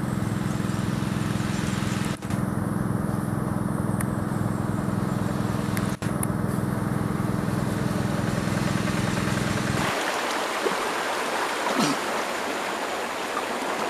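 A steady low hum whose source isn't shown, broken by two brief drops. About ten seconds in it stops, giving way to the rushing of a shallow stream.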